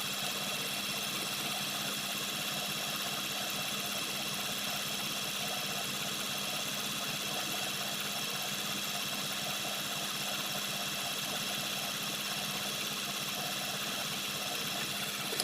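1999 Toyota Sienna's 3.0 L V6 engine idling steadily, a constant hum with a fine rapid pulse; the engine logs random and cylinder-2 misfire codes, which the owner traces to a leaking number 2 valve.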